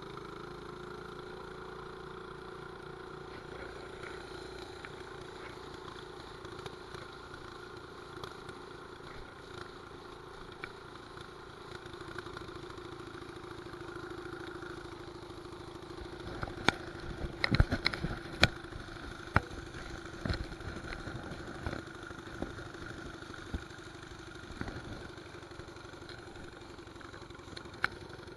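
Mini bike's 212 cc single-cylinder four-stroke engine running at a steady speed while riding. A little past halfway, a cluster of sharp knocks and rattles cuts through, the loudest sounds in the stretch.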